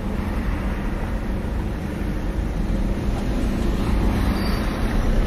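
Steady low rumble of vehicle and road noise with a faint constant hum, and no distinct events.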